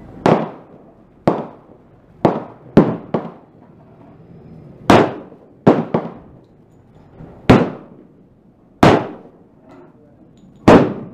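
A string of about eleven pistol shots from a Glock 30 fitted with a 10mm conversion barrel, firing 10mm rounds at an uneven pace of roughly one a second, with some quicker pairs. Each shot is sharp, with a short ringing tail.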